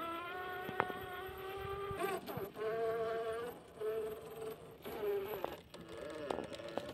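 Traxxas TRX-4 Sport RC crawler's brushed electric motor and geared drivetrain whining. The pitch rises and falls as the throttle is worked, and the whine cuts out briefly several times. A few sharp clicks sound along the way.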